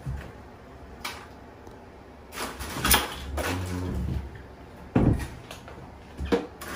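Metal kitchen tongs clacking and scraping inside a plastic cooler as live crabs are picked out, with several sharp knocks.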